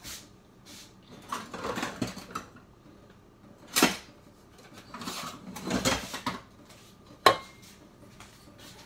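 Metal cutlery and dishes clattering and clinking in several bursts, as someone rummages for a utensil. A single sharp clink near the end is the loudest.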